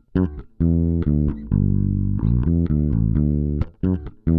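Electric bass guitar played direct through a phantom-powered active DI box into a mixer: a run of plucked notes that breaks off briefly twice, with one note held for about half a second near the middle.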